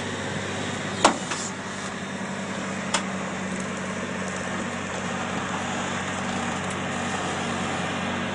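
Electric drive motors of a Tank Chair tracked all-terrain wheelchair humming steadily as it drives forward, with a few sharp knocks, the loudest about a second in.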